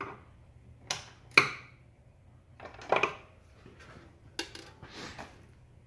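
A few scattered sharp metallic clinks and knocks of hand tools and suspension parts being handled.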